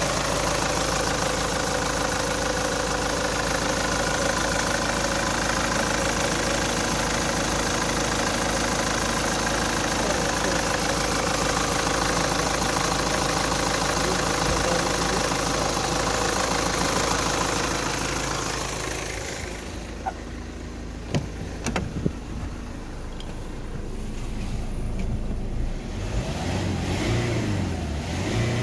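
Mercedes OM646 2.2 CDI four-cylinder common-rail diesel idling steadily with the bonnet open. About two-thirds of the way in, the sound drops and turns muffled, as heard from inside the car, with a few sharp clicks. Near the end the engine is revved up and down twice, to about 2,700 rpm.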